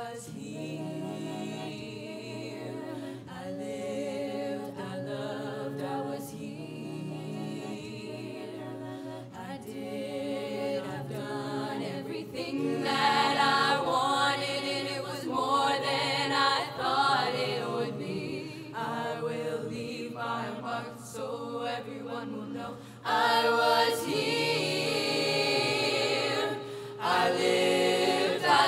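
Student concert choir of mixed voices singing a cappella. The choir swells louder about halfway through, eases back, then comes in suddenly louder near the end.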